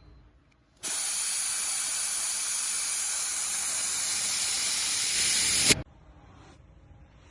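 A steady hiss of gas escaping under pressure from a nozzle. It starts suddenly about a second in, swells slightly near the end and cuts off sharply about five seconds later.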